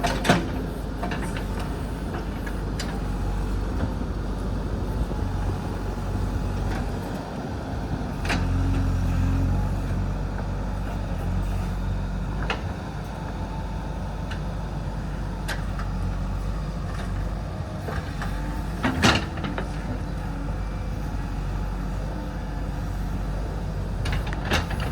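JCB 3DX backhoe loader's diesel engine running steadily, working harder for a couple of seconds about eight seconds in. Several sharp knocks cut through it, the loudest about nineteen seconds in.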